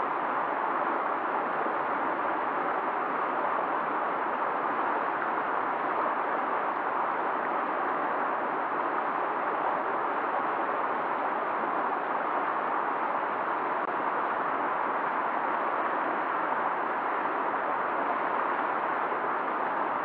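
Fast-flowing river rushing steadily, an even noise of water with no change in level.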